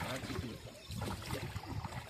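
Indistinct low voices of people aboard a boat, over the steady background of the ride.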